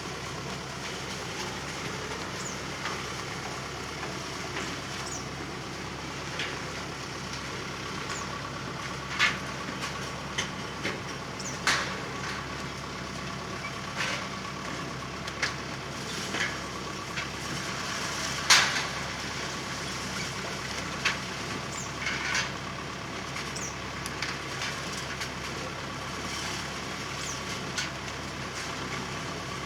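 Small four-cylinder engine of a low-geared sweet corn harvesting machine running steadily, with scattered sharp knocks and clatters every second or few, the loudest a little past halfway.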